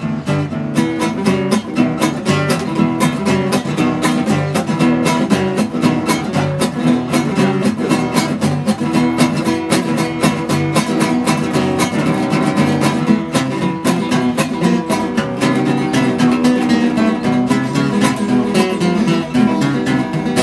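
A nylon-string classical guitar and a steel-string acoustic guitar played together, with busy picked notes in quick succession.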